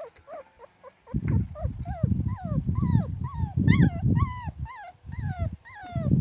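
Puppies whimpering: a quick run of short, high cries, each falling in pitch, about two or three a second. A low rumbling, rustling noise runs underneath.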